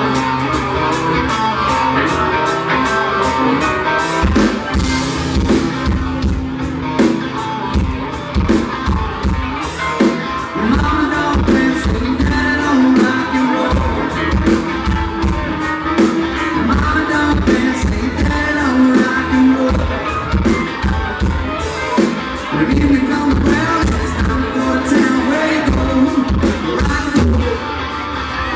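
Live country band playing a dance song, with guitar, bass and keyboards, and a drum kit laying down a steady beat that comes in about four seconds in.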